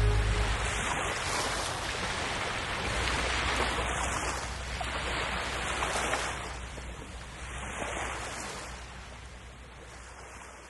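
Sea water washing in slow, repeated swells, fading out toward the end.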